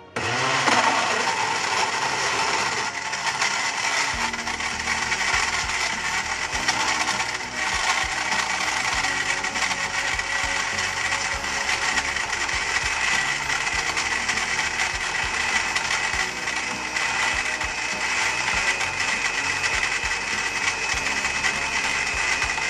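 Electric countertop blender switching on about half a second in and running steadily, crushing ice cubes and dragon fruit with condensed milk into a smooth shake.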